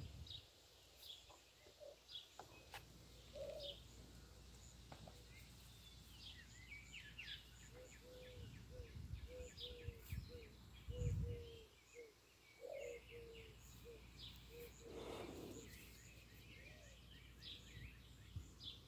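Faint outdoor ambience with birds chirping: scattered short high chirps, and a run of short, low repeated notes in the middle. A brief low rumble a little past the middle.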